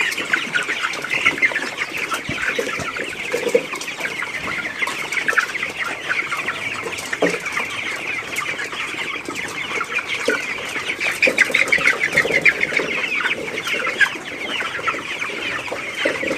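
A large flock of young broiler chickens calling together: a dense, unbroken chorus of short, high peeps and clucks.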